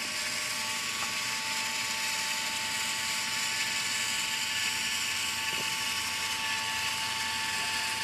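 Battery-powered cartridge dispenser's electric motor and gear drive running steadily, pushing a bead of two-part polyurea joint filler out through the static mixing nozzle. It makes an even whir with one constant pitch and does not let up.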